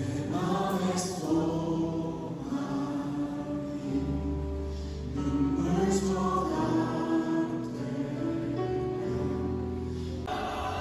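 Christian worship music: voices singing together over instrumental accompaniment with long, held bass notes.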